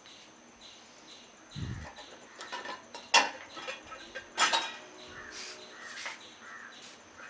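Dishwasher's lower dish rack being pulled out and lifted free: a low thump, then a run of sharp clicks and rattles, the two loudest about a second apart in the middle.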